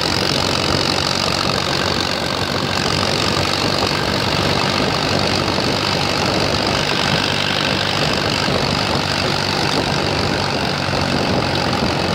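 Allis-Chalmers WC tractor's four-cylinder engine running steadily as the tractor drives along the road.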